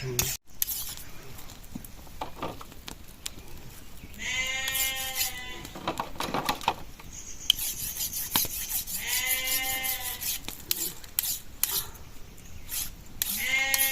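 Sheep bleating: three calls of about a second each, a few seconds apart, with scattered clicks and knocks between them.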